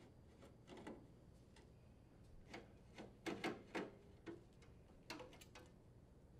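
Faint scattered clicks and light metallic ticks of a Phillips screwdriver working screws out of a sheet-metal mounting bracket, with a small cluster of louder clicks about three and a half seconds in.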